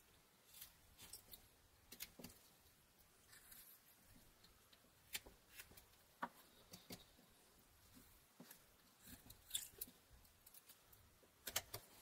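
A Rough Rider pocket knife blade slicing small chips from a pine stick: faint, irregular short cuts and clicks, with the sharpest strokes about nine and a half seconds in and near the end.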